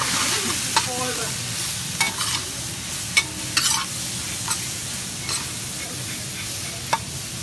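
Fajita vegetables sizzling in a hot stainless steel wok while a metal utensil stirs them, scraping and clicking against the pan every second or so.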